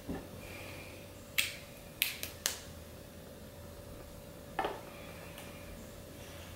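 Small sharp clicks and taps of makeup items being handled: one click about a second and a half in, three quick ones around two seconds, and another near five seconds.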